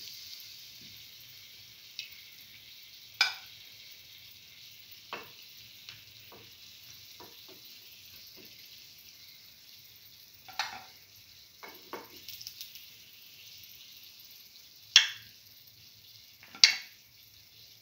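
Hot oil sizzling steadily in the cups of a cavity (appe) pan of frying chickpea-flour fritters. Sharp clicks and taps of a spoon against the pan break the sizzle as the fritters are lifted out, the two loudest near the end.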